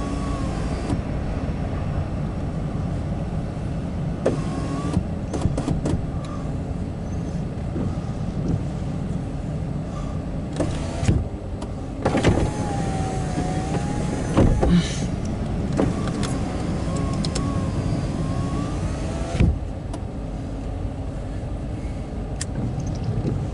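Steady rumble and rain noise inside a car's cabin, with a windshield wiper motor whining as the blades sweep now and then, and a few light knocks.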